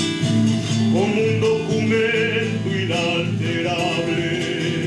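Nylon-string classical guitar played in a live song accompaniment, carrying the music between sung lines.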